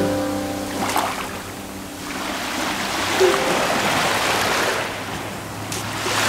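Sea waves washing on the shore, a rushing sound that swells and ebbs, with soft background music underneath.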